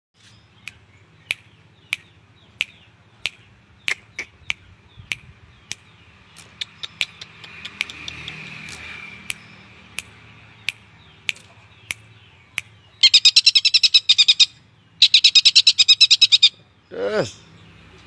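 Caged long-tailed shrike (cendet) calling: a steady run of sharp chip notes about every two-thirds of a second, then two loud, fast rattling trills near the end. The trills are its mimicry of a kingfisher's (tengkek) rattle.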